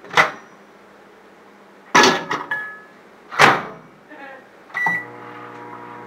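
Microwave oven being loaded and started: several loud clunks from the door and its latch, with lighter clicks, then a short beep. A little before the end the oven starts and runs with a steady hum.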